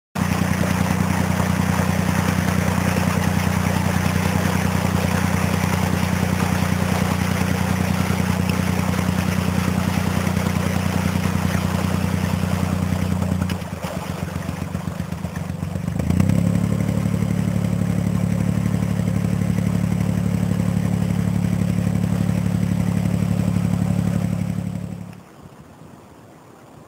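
Narrowboat engine running steadily under way, with the propeller churning the water. It dips about 13 seconds in, comes back fuller and louder about 16 seconds in, then cuts off near the end.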